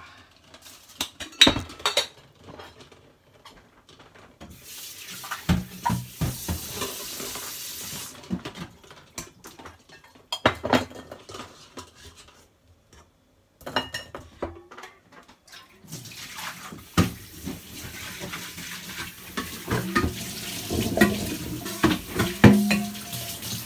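Kitchen tap running into a stainless steel sink in two spells, the second starting about two-thirds of the way in. Metal knocks and clanks of a steel pot being handled in the sink come throughout, loudest near the end.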